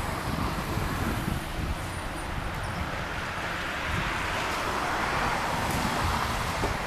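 Road traffic noise: a vehicle passes, its tyre and engine noise swelling and easing off, with wind rumbling on the microphone.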